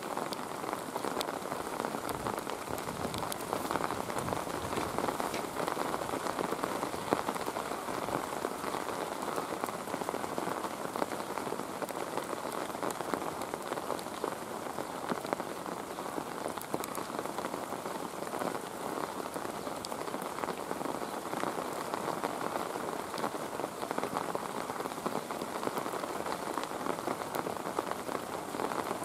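Steady rain falling, with many small drop ticks through an even hiss.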